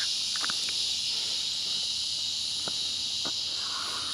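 Steady, high-pitched drone of insects, with a few faint clicks.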